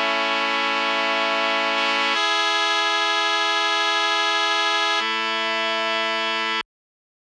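Brass section playing sustained chords, processed through an emulation of a vintage WSW equalizer. The chord changes about two seconds in and again about five seconds in, then cuts off abruptly shortly before the end.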